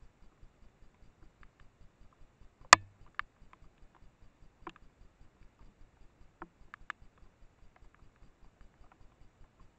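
Trail camera's own faint, steady, fast ticking, with a few scattered sharp clicks; the loudest click comes just under three seconds in.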